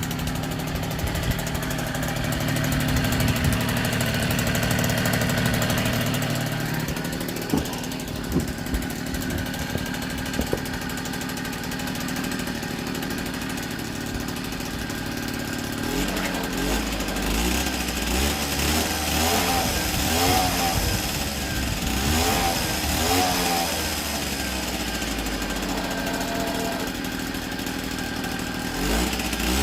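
Freshly rebuilt 49 cc two-stroke single-cylinder engine of an NSU Quickly S23 three-speed moped running. About halfway through its note changes and the revs rise and fall for several seconds.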